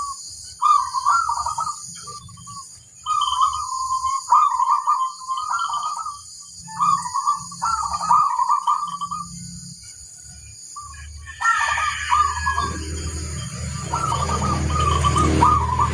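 Zebra dove (perkutut) cooing: repeated short, trilled phrases about a second long with brief pauses between them, over a steady high-pitched hiss. A rougher rustling noise and low rumble join in the last few seconds.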